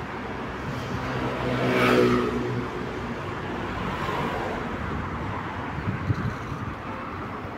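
A car driving past with its engine note audible, swelling to loudest about two seconds in and fading away, followed by steady street traffic noise.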